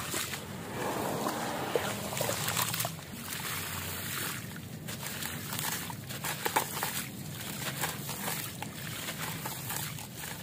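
Hands squeezing and crumbling a gritty lump of wet concrete in a tub of water: water sloshing and dribbling, with a steady gritty crackle and a few sharper cracks.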